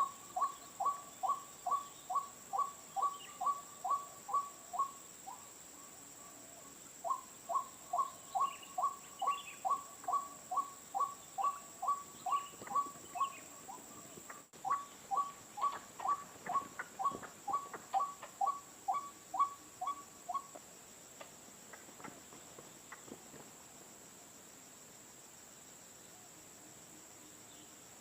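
White-breasted waterhen giving its repeated 'kru-ak' call, evenly spaced two-part notes about two and a half a second, in three long runs that stop about twenty seconds in. A steady high-pitched insect drone runs underneath.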